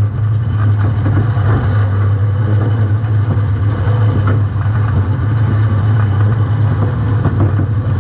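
Compact demolition derby car's engine running steadily, a loud, even low drone, picked up by a camera mounted on the rear of the car.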